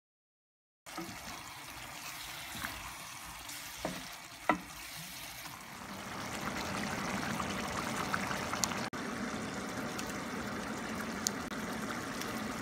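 Grated beet sauté (podzharka) sizzling in a pan as it is stirred with a wooden spatula, with two sharp knocks of the utensil about four seconds in. After a brief break near the end, a pot of broth bubbling at the boil as the sauté is spooned into it.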